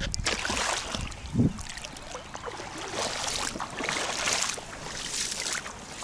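Shallow lake water splashing and sloshing in uneven swishes as a person in sandals steps through it.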